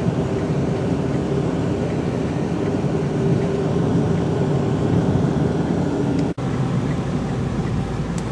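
Steady engine and road noise heard inside a moving car. The sound drops out for an instant about six seconds in.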